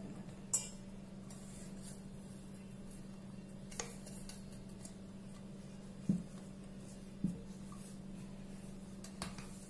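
Stainless-steel mixer-grinder jar knocking against a steel bowl as freshly ground pearl millet flour is tapped out of it: five separate metal knocks spread over several seconds, with a steady low hum underneath.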